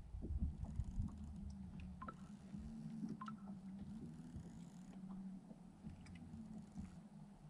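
Bow-mounted electric trolling motor of a bass boat humming steadily at a low pitch, with a couple of faint bird chirps.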